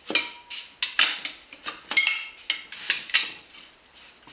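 Tire irons clinking and clanking against a spoked motorcycle wheel's metal rim and spokes as the tire is levered off the rim. A string of sharp metallic clinks that ring briefly, the loudest about once a second, thinning out near the end.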